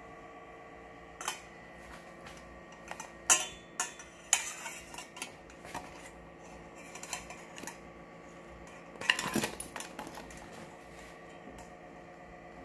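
Stainless steel spatula and spoon clinking and scraping against the inside of a stainless steel pot while the cooked dough is pried loose. Scattered sharp clinks, the loudest about three seconds in, and a burst of scraping knocks around nine seconds in.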